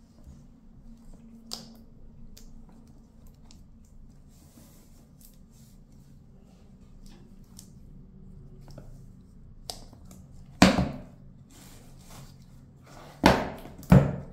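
Smartphone box and packaging being handled: faint rustles and small clicks, then three loud knocks in the last few seconds.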